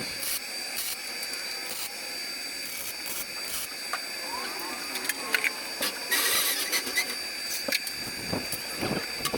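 Arc welder tack-welding steel parts together, a crackling hiss broken by irregular sharp clicks, with a brighter burst of hiss about six seconds in.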